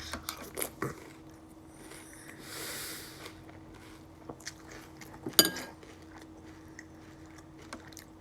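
Close-up chewing of milk-soaked Cinnamon Toast Crunch cereal, with small mouth clicks and one sharp, ringing clink about five seconds in.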